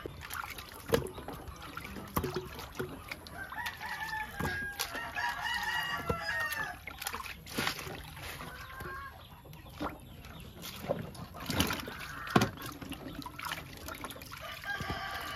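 Sweet potatoes being rinsed in a plastic basin of water and set into a metal cooking pot, giving sloshing water and several sharp knocks as they land. Chickens cluck and a rooster crows in the background.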